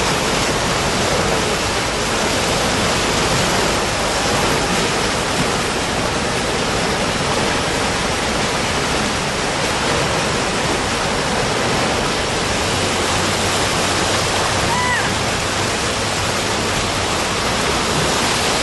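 Floodwater in a stream swollen by tropical-storm rain, rushing loudly and steadily. A single short high chirp sounds about fifteen seconds in.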